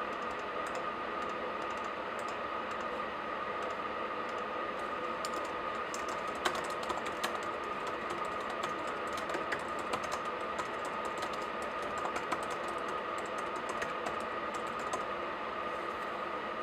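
Laptop keyboard typing: runs of quick keystroke clicks, densest through the middle, over a steady hiss with a faint steady hum.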